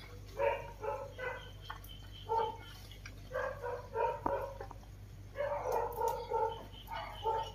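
Puppy yipping and whining in short, high-pitched calls that come in bunches with brief pauses between them.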